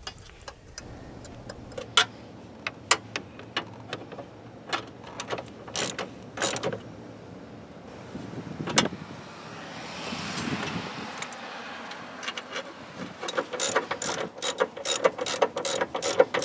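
Scattered metal clinks and knocks of parts being fitted, then a socket ratchet clicking quickly and evenly, about four clicks a second, over the last few seconds as bolts are run in.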